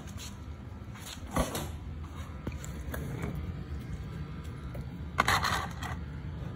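Handling noise from a phone camera being moved and rubbed by fingers: a single knock about a second and a half in and a short scraping rustle near the end, over a low steady rumble.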